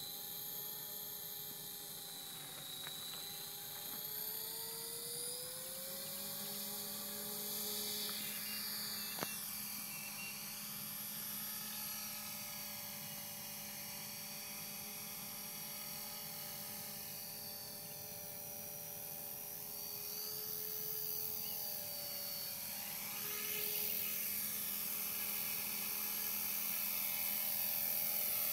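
Electric Esky CP X RC helicopter's motor and rotor whining as it flies, the pitch rising over the first few seconds and then holding with small shifts up and down. It grows louder over the last few seconds, and a single sharp click sounds about nine seconds in.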